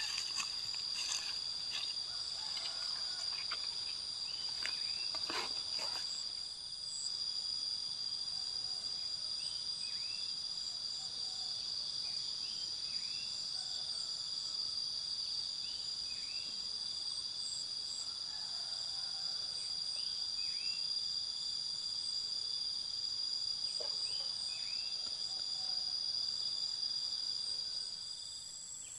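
A steady, high-pitched insect chorus drones without a break, with short chirps repeating over it every second or two. A few brief rustles come in the first few seconds, and the drone stops near the end.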